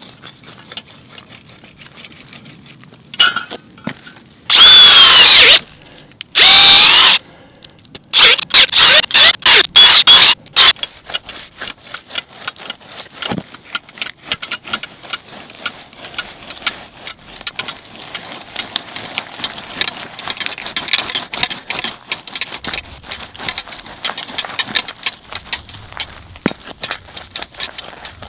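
Steel blade of a Yard Butler turf plug cutter being forced by foot into hard, dry soil, scraping and grinding against gritty dirt. It starts with a few loud scraping bursts and rapid scrapes, then a long run of dense crunching and crackling as the blade works down. The ground is incredibly hard and resists the cutter.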